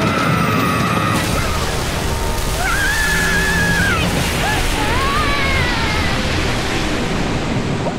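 Cartoon water sound effect: a loud, steady rush of splashing, churning water, under the show's orchestral score with a few sliding notes.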